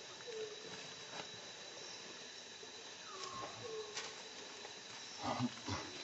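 Faint, short squeaks and small cries from a newborn pig-tailed macaque, a few soft calls, one of them falling in pitch about three seconds in. A brief louder scuffling sound comes near the end.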